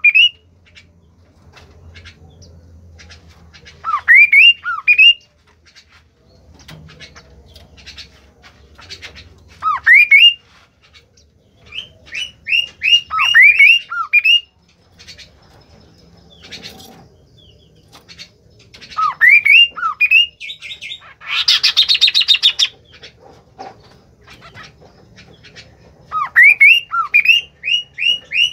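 A bird calling in groups of two to six sharp, rising whistled notes every few seconds, with one harsh, rasping call lasting about a second and a half about two-thirds of the way through.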